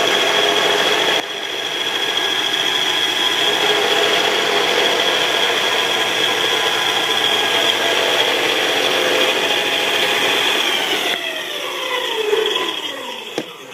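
Belt sander running with a steady high whine while wood is sanded against the belt. About 11 seconds in it is switched off and winds down, its pitch falling as it fades.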